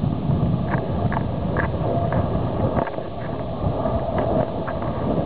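Wind buffeting the camera microphone: a loud, unsteady low rumble, with brief faint higher sounds above it.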